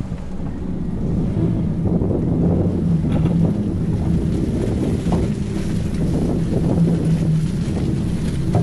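Utility trailer being towed along a wet asphalt road, heard from a camera mounted on the trailer: steady tyre and road rumble with wind buffeting the microphone and a few light rattles.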